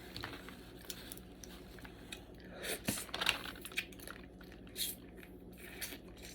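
A person eating blue crab close to the microphone: scattered small cracks and crunches of shell with wet chewing, busiest a few seconds in.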